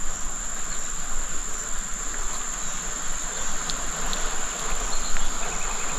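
A steady, high-pitched insect drone, like a cricket's, over the even hiss of flowing river water, with a few faint ticks.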